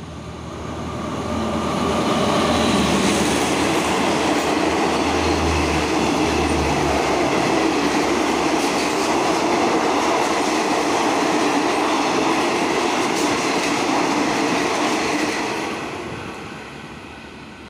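A Thai passenger train running through a station at speed without stopping. The noise builds quickly, holds steady with a low rumble strongest a few seconds in, and fades near the end as the last coaches pass.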